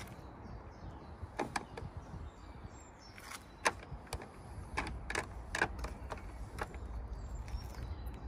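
Socket wrench ratchet and metal tool clicking in short, irregular strokes as a new car battery is tightened down, with faint bird chirps and a low wind rumble.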